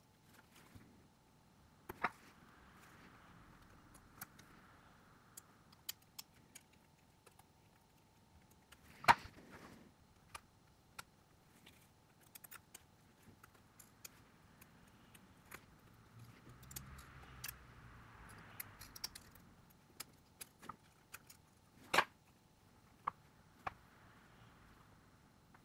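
Small tools and phone parts clicking and tapping on a work surface during a smartphone teardown, with soft scraping in between. The two loudest clicks come about nine seconds in and near the end.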